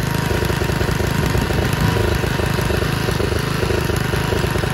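Riding lawn mower's engine running steadily while mowing grass.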